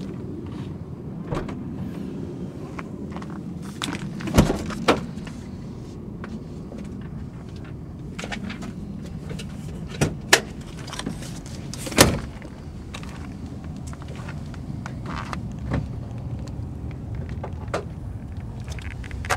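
Steady low rumble with a scatter of sharp clicks and knocks: two close together about four and a half seconds in, two more about ten seconds in, and the loudest about twelve seconds in.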